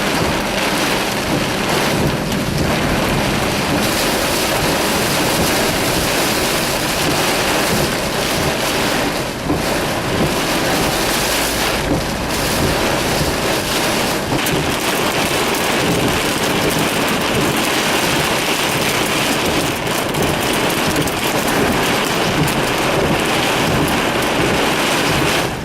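Torrential thunderstorm rain, a dense steady downpour with only brief dips.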